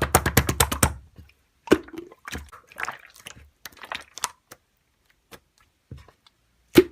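A quick run of sharp clicks for about a second, then scattered taps and knocks with short silences between, and one louder knock near the end.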